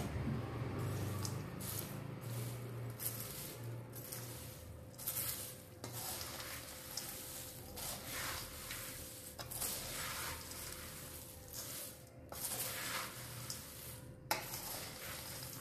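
Slotted steel ladle stirring a large steel bowl of dry fried snack mixture (sev, ribbon chips, peanuts), the crisp pieces rustling and scraping against the steel in repeated irregular strokes.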